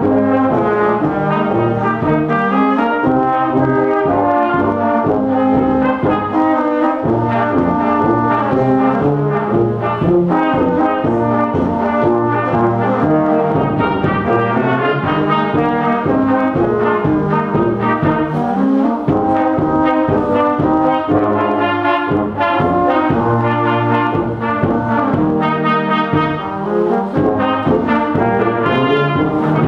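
A children's school brass band plays a slow piece: tubas and baritone horns carry the bass line under tenor horn and cornets, with continuous held chords that shift from note to note.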